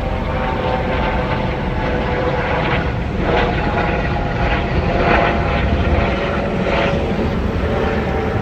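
Small propeller plane flying overhead: a steady engine drone over a low rumble, swelling briefly a few times.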